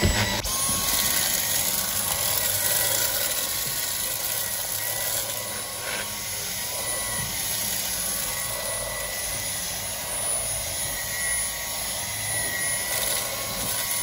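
Dyson V10 cordless vacuum running steadily with a high whine over a rush of air, its nozzle sucking dirt from a car floor mat.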